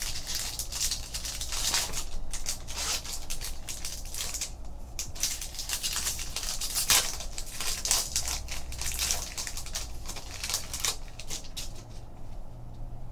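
Foil wrapper of a trading-card pack being torn open and crinkled by hand, a dense crackling rustle that dies down about eleven seconds in.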